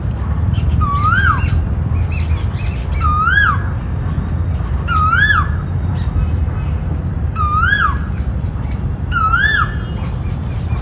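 Asian koel calling: the same rising 'ko-el' note, swooping up and dropping off sharply, repeated five times about every two seconds. A steady low rumble and faint higher chirps run underneath.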